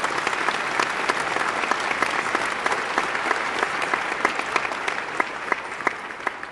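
Crowd applause, a dense patter of many hands clapping, tailing off near the end.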